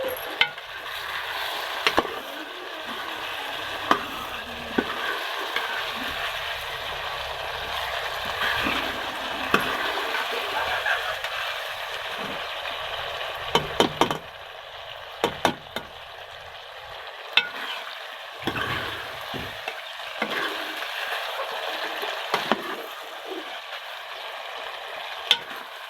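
Food frying in hot oil in a pan, with a steady sizzle, while it is stirred with a spoon. Now and then there are sharp clicks of the spoon against the pan.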